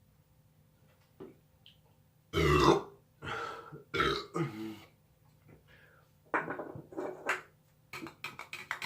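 A man belching several times, the loudest and longest about two and a half seconds in, with more belches following; the gas comes from chugging carbonated energy drinks. A few short sharp clicks near the end.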